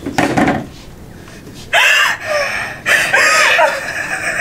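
Girls' high-pitched shrieks and squealing laughter in short bursts, starting about two seconds in after a brief lull.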